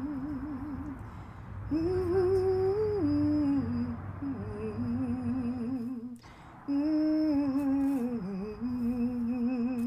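A wordless humming melody of long held notes, each with a steady even vibrato, broken by a short pause about six seconds in.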